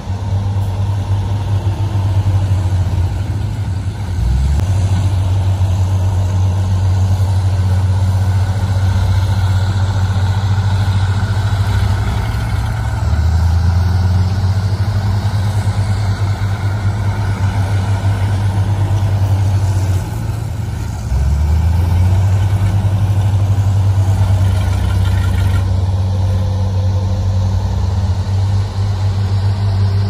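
Dump truck's diesel engine running at raised revs while the hydraulic hoist tips the loaded bed. The engine note is steady, dropping and picking up again a few times.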